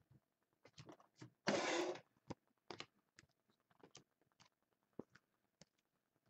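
Trading cards and their plastic packaging being handled: scattered light clicks and rustles, with one louder half-second rustle about a second and a half in.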